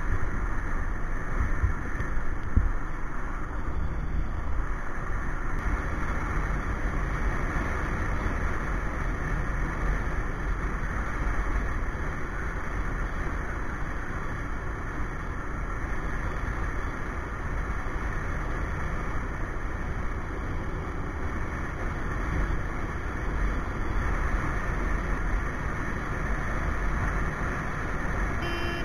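Riding motorcycle heard through an action camera's microphone: a steady rush of wind over the microphone, with low rumble from the motorcycle's engine and tyres on the road underneath.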